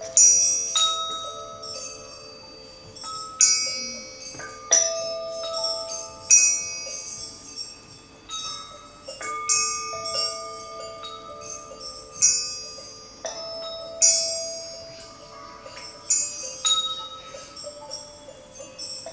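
Children striking small tuned metal percussion, glockenspiel and chime-like bars, in loose, unsynchronised strikes about every second or two, each note ringing on after it is struck.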